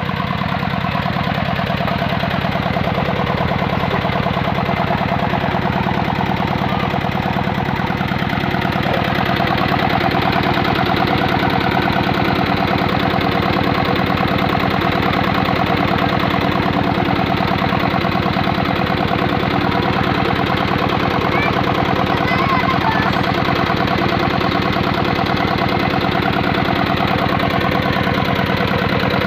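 Single-cylinder 'dompeng' diesel engine running steadily with a fast, even knocking beat, growing a little louder about nine seconds in.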